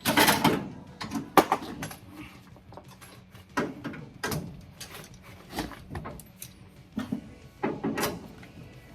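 Irregular metallic knocks and clanks of hand tools and suspension hardware being worked, about a dozen over several seconds, the loudest right at the start.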